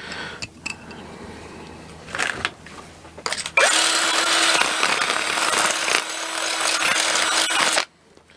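Electric drill spinning a bit at high speed through a part's hole, opening it out to give clearance on a smooth rod. It starts suddenly a few seconds in, runs steadily for about four seconds and stops abruptly, with a few light handling clicks before it.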